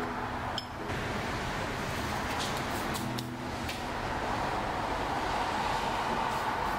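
Steady hiss of background noise, like a fan or air conditioner, with a few faint clicks about midway through.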